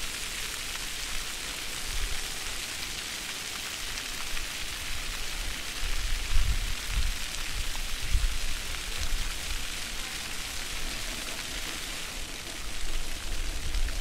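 Fountain water jets splashing onto wet stone paving, a steady, even hiss of falling water. A few brief low rumbles come in around the middle.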